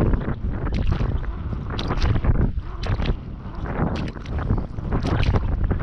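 Strong wind buffeting the microphone: a heavy, unsteady low rumble with frequent short crackles.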